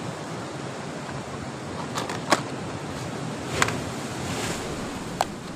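Steady wash of sea surf, with a few sharp clicks scattered through it.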